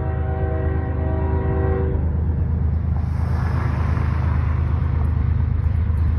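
A train's air horn sounding one steady chord that cuts off about two seconds in, over a steady low rumble. A car then passes with a swell of tyre noise around four seconds in.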